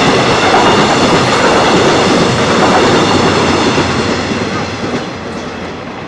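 Passenger coaches of a diesel-hauled train running through on the rails without stopping, with loud wheel-on-rail rumble and clatter. The noise fades away over the last couple of seconds as the train clears the crossing.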